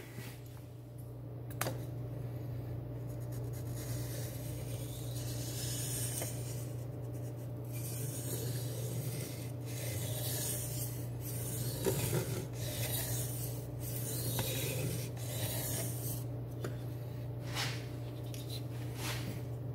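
A D2 steel knife blade, clamped in a DMT Aligner angle guide, is stroked back and forth across a sharpening stone: a series of rubbing, scraping strokes, about one a second. These are passes to check the bevel angle on both sides of the edge.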